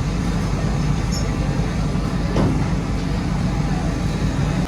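Factory machinery running with a steady low rumble, with one short knock about two and a half seconds in.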